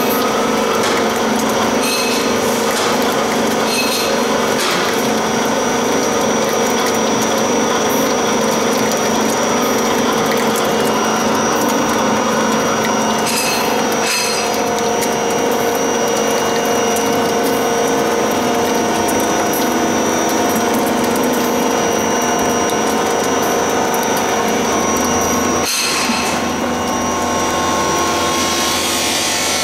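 MK-65 screw oil press running steadily while pressing nigella (black seed) seeds: a loud, continuous mechanical noise with a couple of brief clicks midway and near the end.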